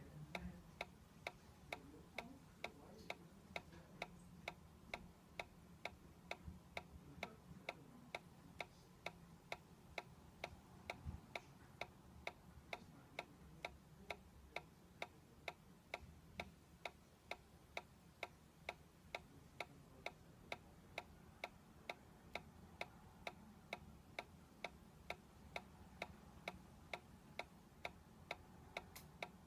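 Solar-powered dancing toy ticking steadily as its swing mechanism rocks the figure from side to side, at about two clicks a second over faint room hum.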